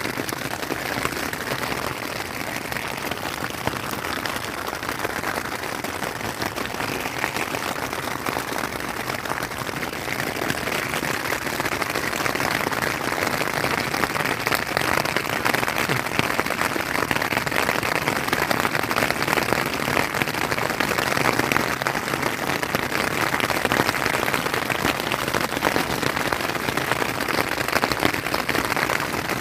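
Heavy rain drumming on a tarp flysheet, heard from underneath it: a dense, steady patter that grows a little louder about a third of the way in.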